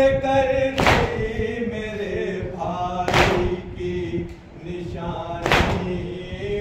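A man chanting a noha lament into a microphone, with a group beating their chests together in time (matam): three loud thumps, about one every two and a half seconds.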